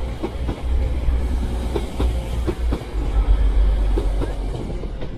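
TransPennine Express Class 185 diesel multiple unit, two units coupled, pulling out of the station past the platform. It makes a low diesel rumble that swells about three seconds in, with its wheels clicking irregularly over rail joints.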